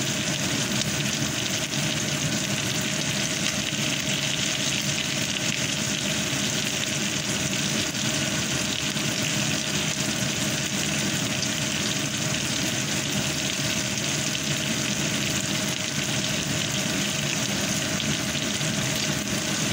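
Pork rib pieces frying in oil in a nonstick pan, a steady sizzle that does not let up. A faint steady hum runs underneath.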